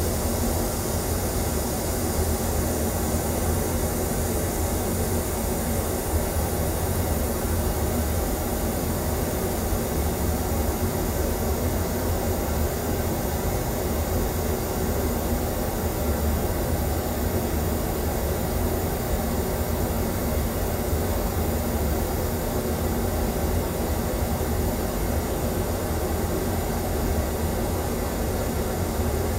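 Pink noise test signal played through an auditorium's sound system as a steady, even hiss, used for room EQ measurement. Its highs dim slightly early on as the graphic EQ's upper bands are pulled down.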